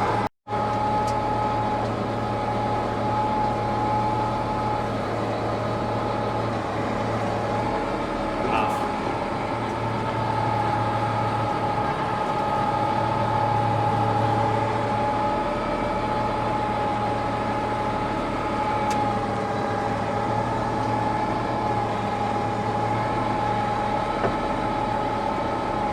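Tractor running steadily: an even engine hum with a steady high whine over it, holding constant throughout.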